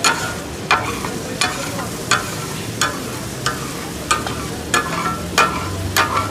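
Metal spatulas clacking on a flat iron tawa in a steady takatak rhythm, about ten strikes at roughly one every 0.7 seconds, chopping and mixing brain masala. Under the strikes the food sizzles steadily on the hot griddle.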